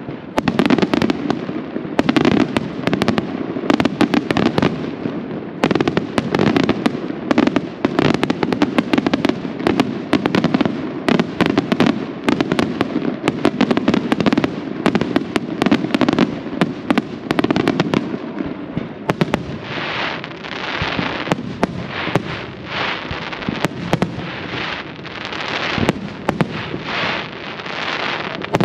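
Aerial firework shells bursting in a dense, rapid barrage of bangs and crackling. About two-thirds of the way through it changes to a run of hissing swells, roughly one a second, among the bursts.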